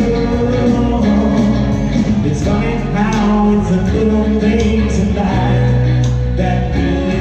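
Live country-rock band playing, with drums, bass and guitar under a man singing into a microphone.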